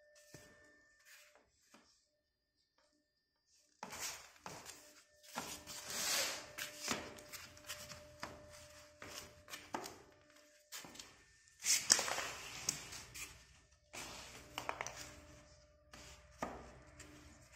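White particleboard cabinet panels being handled and pushed together on cardboard, their wooden dowels going into the holes: repeated knocks, taps and scraping, with the loudest knock about twelve seconds in.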